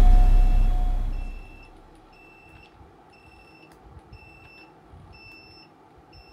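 Background music fading out, then faint short high-pitched beeps from a piezo buzzer, about once a second.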